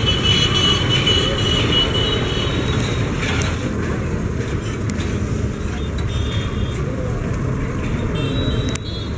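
Steady low street rumble, with voices in the background.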